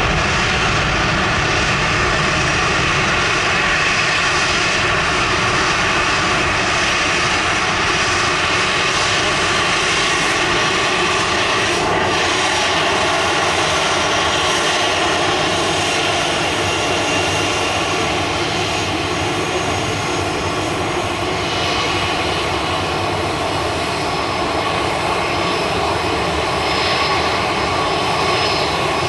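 Jet engines of a departing Boeing airliner at takeoff power: loud, steady jet noise that dips slightly past the middle and builds again near the end.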